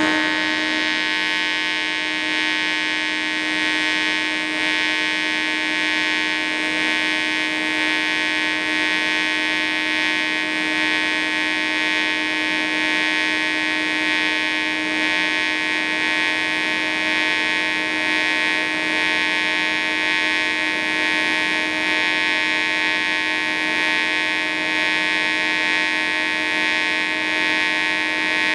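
Parweld XTM211Di pulsed DC TIG arc on stainless plate, set to about 140 A peak, 70 A background and 80 Hz pulse: a steady, unchanging buzz with a strong low tone and a bright upper tone.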